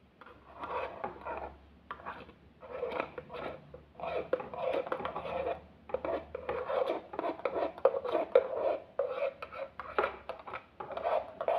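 Irregular scraping and clinking of a utensil against the Aeroccino3 milk frother's jug and a cup as frothed milk is transferred into the cup, in short strokes with small knocks throughout.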